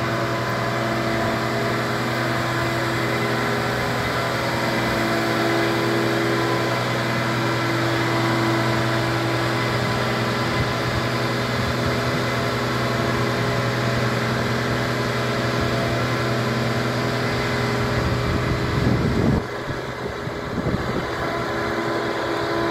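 Boat travel lift's engine running steadily as the lift drives along with a yacht hanging in its slings. Near the end the engine note changes and the sound drops in level.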